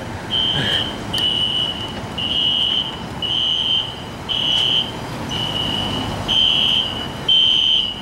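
Building fire alarm going off: a high-pitched beep of about half a second, repeating about once a second.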